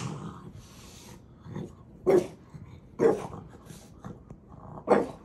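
A dog vocalizing in three short bursts, the first two about a second apart and the third two seconds later, over a toy it doesn't want to share.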